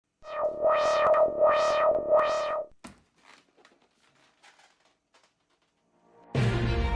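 Synthesizer music: one held synth note that swells brighter and duller three times, stopping about two and a half seconds in. After a near-quiet gap with faint traces, fuller music starts loudly near the end.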